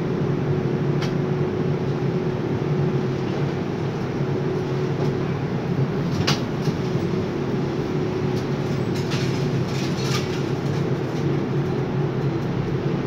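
Overhead hot metal crane running, heard from inside the operator's cabin: a steady machinery drone with a held hum, and a few short clicks and clanks.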